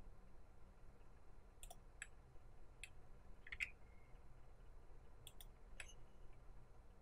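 Faint computer mouse and keyboard clicks, about eight of them at irregular spacing, the loudest about halfway through, over quiet room tone.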